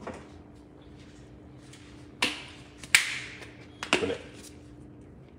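Three sharp clicks and knocks, about a second apart, of a spice jar and its shaker cap being handled at the counter, with a faint steady hum behind.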